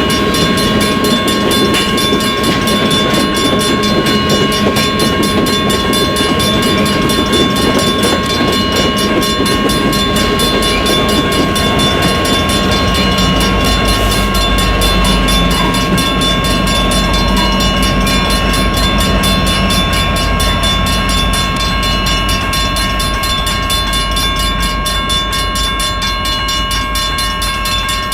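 Loaded BNSF coal train rolling past: a rapid clatter of wheels on the rails with several steady high tones held over it, and a low rumble that grows stronger about halfway through.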